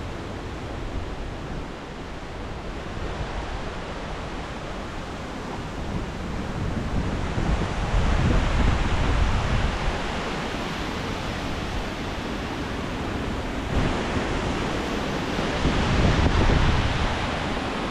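Strong storm wind from Hurricane Lee rushing in gusts and buffeting the microphone, with a deep rumble. It swells about 7 seconds in and again near the end.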